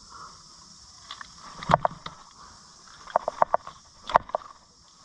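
A hooked fish being landed: a few sharp slaps and splashes, one about two seconds in, then a quick run of them a little after three seconds and another near the end.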